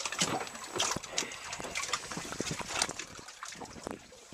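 Water lapping and splashing against the hull of a small boat, a run of irregular slaps and splashes.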